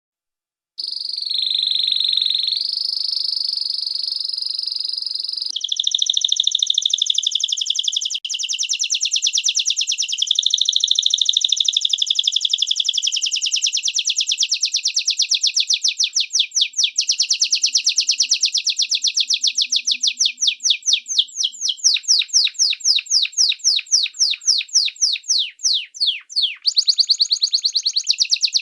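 Canary singing one continuous song. It opens with rolling, warbling trills and, from about halfway through, shifts to a long run of fast, evenly repeated notes.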